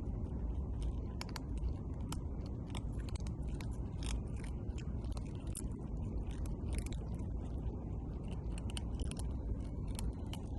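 A cat chewing and crunching food, a run of irregular crisp clicks, over a steady low rumble.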